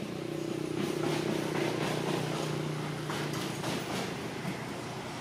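A motor engine running steadily, its low hum fading out about three seconds in, with scattered light clicks over it.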